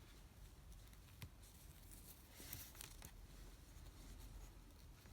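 Near silence, with faint rustling and a light click of hands handling mask elastic and fabric while tying a knot.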